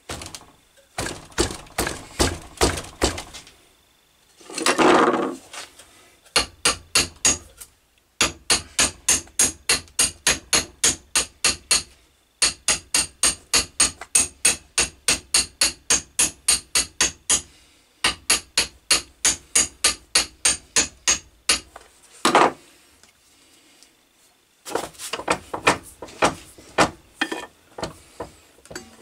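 Small hammer tapping a steel axe head seated on a hickory handle held in a vise, in quick runs of sharp metallic knocks about four a second with short pauses between runs. The head is being driven onto the handle to test its fit while the handle is shaped. About five seconds in there is one longer, louder noise lasting about a second.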